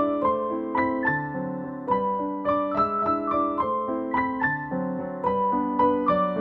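Background music: a gentle piano melody, one note after another in an even flow.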